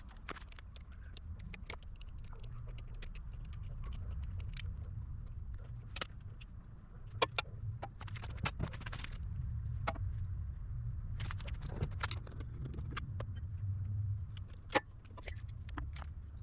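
Scattered metallic clicks and clinks of hand tools and parts while an old fork-mounted turn signal is taken off a motorcycle, over a steady low rumble.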